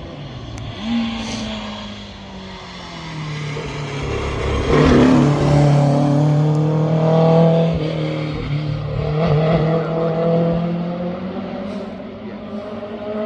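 Historic racing car engines running and passing by. The loudest pass comes about five seconds in, and another engine swells again a few seconds later.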